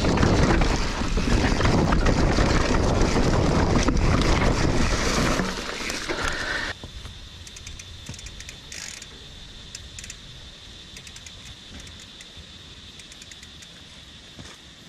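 Mountain bike ridden fast down a rocky trail, heard from a handlebar-mounted camera: wind buffeting the microphone and the bike rattling over rock. The noise eases a little and then cuts off abruptly about seven seconds in, leaving a quiet background with a steady high-pitched whine and a few scattered clicks.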